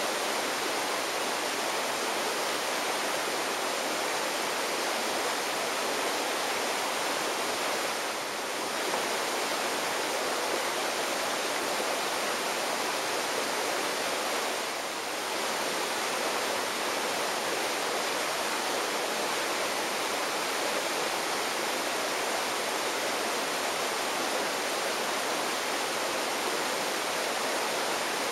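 Steady rushing of running water, even and unbroken, briefly a little softer twice, about a third of the way in and near the middle.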